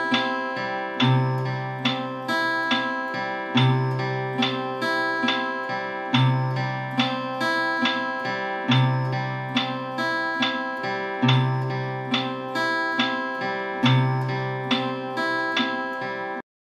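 Acoustic guitar fingerpicked in a repeating 3/4–6/8 arpeggio pattern. Each cycle opens with a low bass note about every two and a half seconds, followed by about five notes on the higher strings. The playing cuts off abruptly near the end.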